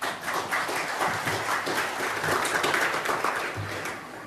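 Congregation applauding: a dense patter of many people clapping at once, dying down near the end.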